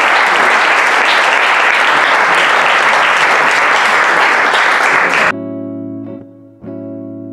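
Audience applauding, cut off suddenly about five seconds in by instrumental outro music with plucked notes.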